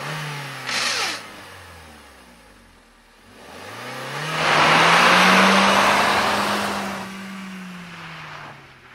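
Engine-like motor sound: its pitch falls early on, then rises, holds high and winds down again. There is a short hiss about a second in, and a louder rush of noise while the pitch is at its highest.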